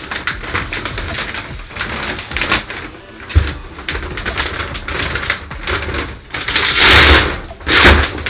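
Large plastic sheeting and wrap crinkling and rustling as it is handled and pulled away, with two loud swishes of the sheet near the end.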